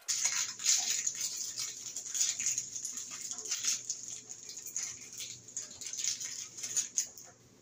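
Rustling and light clicking of small barn-door hardware being handled, busiest in the first few seconds, over a faint steady low hum.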